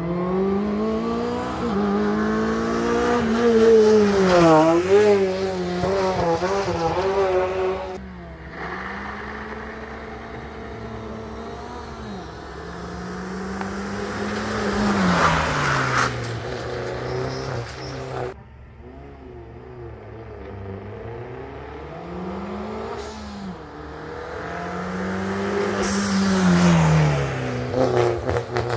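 Rally car engines at full throttle, one car after another, accelerating hard up a hill-climb course: the engine pitch climbs and drops back at each gear change, every couple of seconds, as each car comes past.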